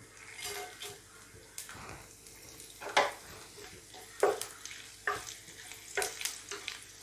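Whole spices (bay leaves, cumin seeds, star anise, cloves) sizzling in hot oil in an iron pan while they are stirred with a wooden spatula, with a few sharp clicks along the way. The spices are being fried for a tempering.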